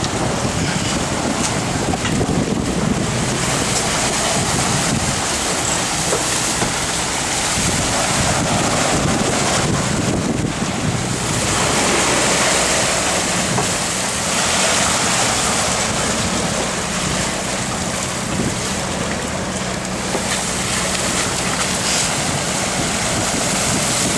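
Wind buffeting the microphone over the rush of sea water and wake along a sailboat's hull under way in rough open sea, a steady noise that swells and eases.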